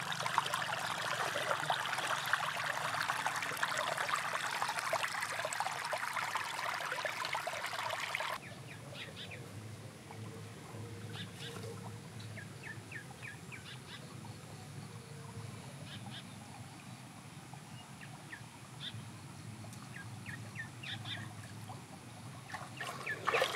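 Shallow stream water rushing and splashing over a muddy bank, loud and close for about the first eight seconds. It cuts off suddenly to a quieter trickle of the stream, with birds chirping in short, scattered calls.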